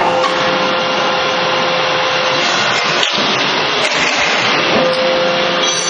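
Hydraulic cutting machine running: a steady motor-and-pump noise with a faint constant hum, starting suddenly just before and holding an even level throughout.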